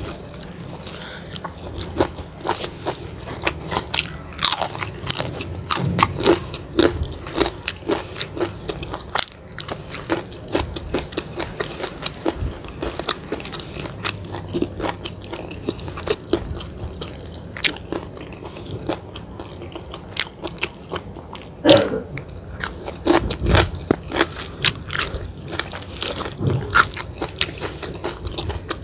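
A person eating close to the microphone, biting and chewing with frequent irregular crisp crunches.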